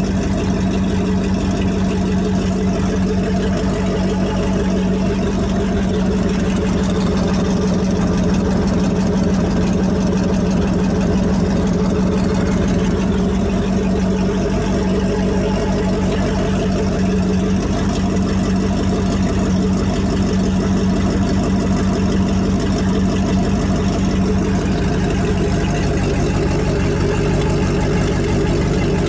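Freshly rebuilt Mercruiser 350 small-block 5.7-litre V8 inboard engine of a sterndrive speed boat, running steadily at idle out of the water, fed cooling water by a hose.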